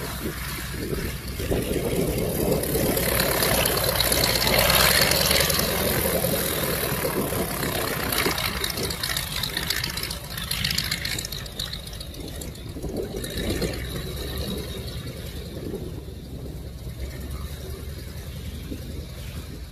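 Boeing Stearman biplane's radial engine running at low power as the plane taxis on grass. It is louder through the first half and eases off in the second.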